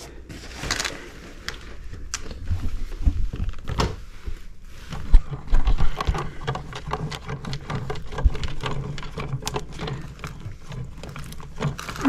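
Hands twisting a wire nut onto a bundle of copper wires at an electrical outlet box, with irregular small clicks and scraping. There is one sharp knock about five seconds in.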